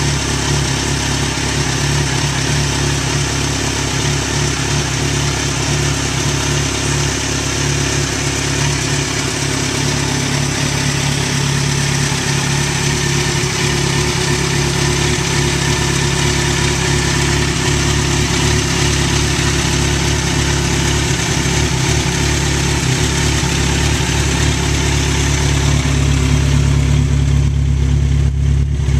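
A 2011 Kawasaki Z1000SX's inline-four engine idles steadily through a Two Brothers aftermarket exhaust with the catalytic converter removed. Near the end the sound turns deeper as it is heard right at the muffler.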